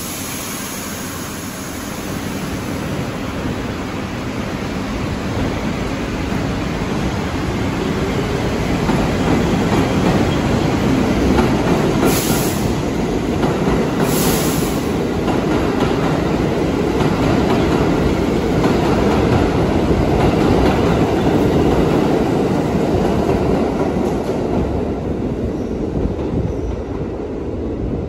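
R62A subway train pulling out and running past along the rails, its motors and wheels rumbling louder as it gathers speed, then easing slightly as the last cars pass. Two short high-pitched bursts come about halfway through.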